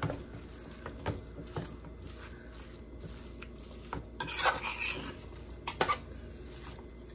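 Metal spoon clinking and scraping against a stainless steel pot while stirring raw beef mince, chopped onions and spices together. There are scattered light clicks, and the loudest, longest scrape comes about four seconds in.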